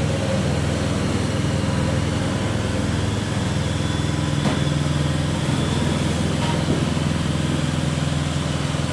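Small Honda GX petrol engine running steadily at constant speed, driving a coconut-milk press through its gearbox while the press works a batch of grated coconut and water.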